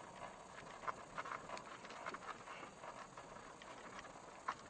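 Faint, scattered ticks and crackles of gravel under a car's tyres, over a low hiss.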